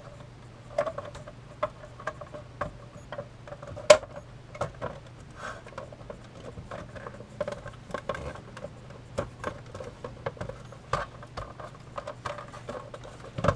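Alarm clock's housing being handled and pressed onto its chassis: irregular small clicks, taps and light knocks of the case parts, over a steady low hum. The case is not seating quite right.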